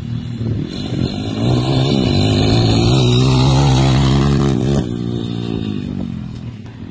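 Pit bike engine revving hard as the bike rides past on the dirt track, its pitch rising and wavering. The engine sound drops off suddenly about two-thirds through and fades as the bike moves away.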